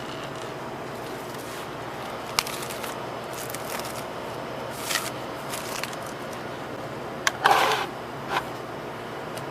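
Scattered handling noises: a few sharp clicks and short scraping rustles over a steady background hum, the loudest scrape about seven and a half seconds in.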